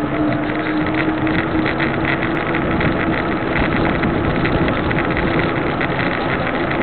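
Wind rushing over the microphone of a camera riding along with a group of cyclists at speed, mixed with tyre and road noise. A faint steady hum fades out about halfway through.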